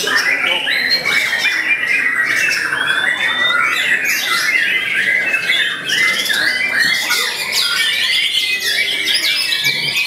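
White-rumped shama singing loudly in a dense, unbroken stream of rapid whistles, sweeps and trills, overlapped by other caged songbirds singing at the same time.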